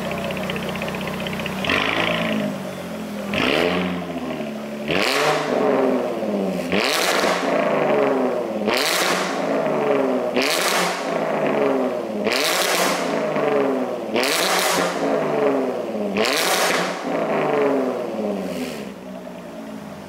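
Jaguar F-Type's 3.0-litre supercharged V6 blipped while standing, through an Fi Exhaust valved cat-back system and catless downpipe with the exhaust valve open. A short stretch of idle gives way to about ten sharp revs, roughly one every two seconds, each rising quickly and falling back toward idle.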